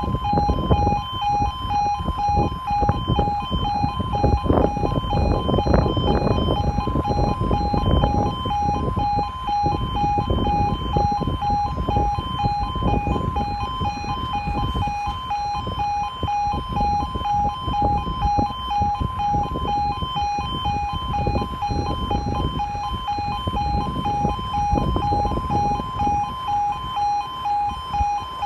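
Level crossing warning alarm sounding without a break, two pulsing tones repeating evenly, over wind buffeting the microphone.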